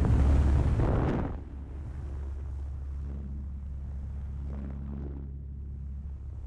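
Wind rushing over the microphone at the open door of a single-engine propeller plane in flight, loud for about the first second, then dropping away to the plane's steady, low engine and propeller drone.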